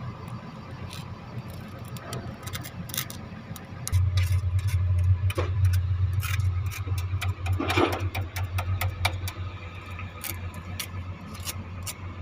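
Arc welding on a cracked excavator bucket: a steady low hum that gets clearly louder about four seconds in and eases off again later, with scattered sharp clicks and crackles throughout.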